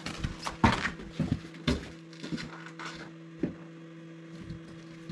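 Firewood blocks being set and stacked into a wood box: a string of irregular wooden knocks and clunks, closer together in the first two seconds and sparser after, over a steady low hum.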